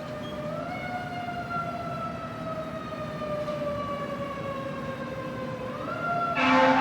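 Fire truck siren wailing over city traffic: it rises about half a second in, falls slowly for several seconds, then rises again. Near the end the fire truck's horn starts, loud, over the siren.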